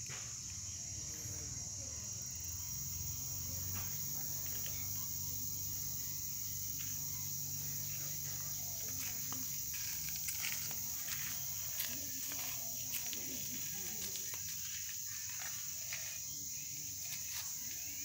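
Steady high-pitched chirring of insects, with a low hum underneath and scattered light clicks in the second half.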